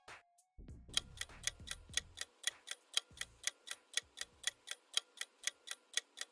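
Clock-tick countdown sound effect: quick, even ticks, about five a second, starting about a second in, while the answer timer runs down.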